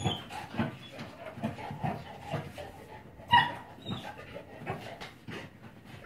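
Neapolitan Mastiff puppy panting in quick, regular breaths while playing, with one brief high-pitched squeak about halfway through.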